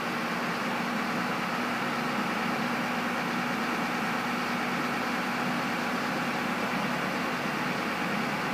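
Steady mechanical hum with a constant low drone and no change in level.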